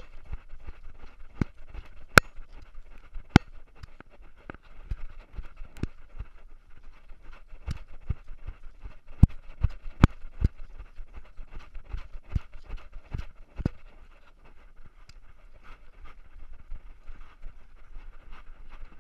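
Irregular knocks and thumps from a camera on a dog's collar jostling as the dog moves, a few of them sharp and loud, over a faint steady hiss.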